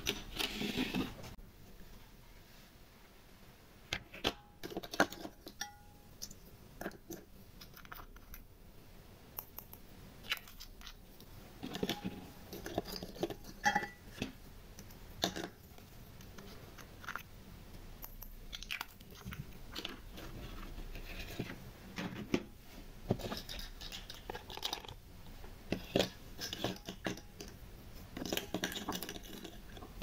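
Small plastic toy cup and spoon being handled, with scattered light clicks, taps and soft rustling as glitter is scooped and shaken out.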